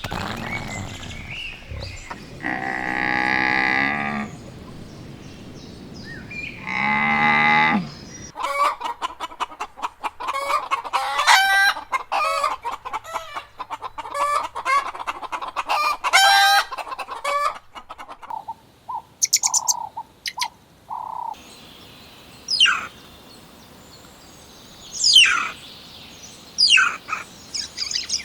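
Chickens: a rooster crows twice, then hens cluck rapidly for several seconds, followed by a few short notes and high, falling chick-like peeps.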